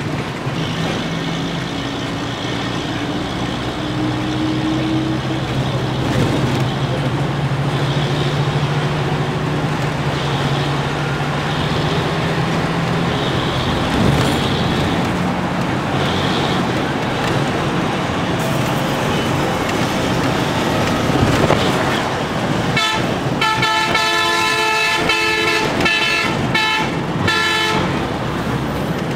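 Moving bus heard from inside, with steady engine drone and road noise. Near the end, a multi-tone vehicle horn honks in several blasts.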